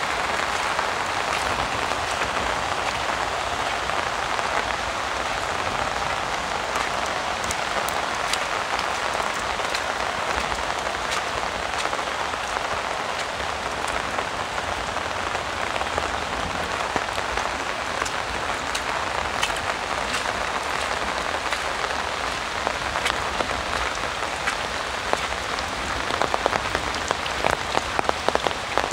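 Heavy rain falling steadily and pattering on an umbrella held overhead. Near the end, sharper individual drop hits become more frequent.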